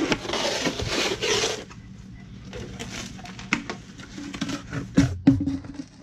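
A compact spare tire being worked free of its plastic carrier and lifted out: a rubbing scrape for about a second and a half, then scattered knocks and clunks of rubber and plastic, the loudest about five seconds in.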